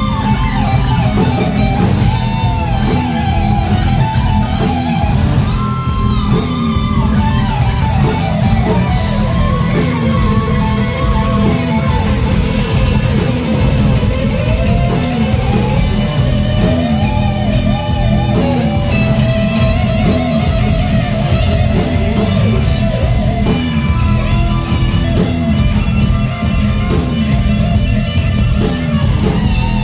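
Rock band playing an instrumental passage: electric lead guitar with bent and sliding notes over bass and drums.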